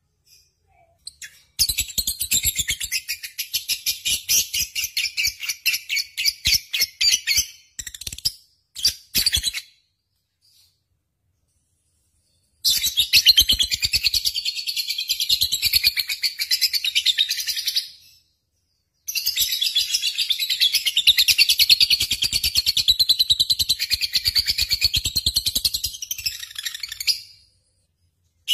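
Lovebird singing in long, rapid chattering trills, each run lasting several seconds and broken by short silent pauses.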